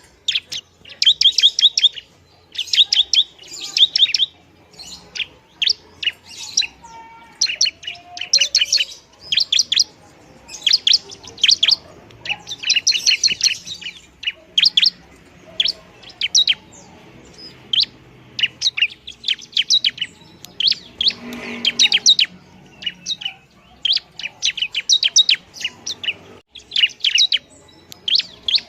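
Bar-winged prinia (ciblek) singing busily: runs of rapid, sharp, high-pitched chipping notes, each run about a second long, repeated with short gaps.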